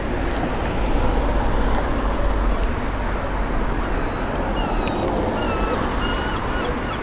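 Gulls calling, a run of short mewing calls from a little past halfway, over a steady outdoor rush of wind and traffic.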